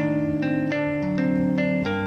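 Background music: a melody of plucked string notes, a new note every few tenths of a second, each ringing and fading.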